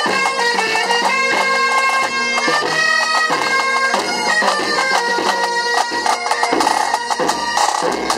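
Bagpipe music: a quick melody of short changing notes played over a steady drone.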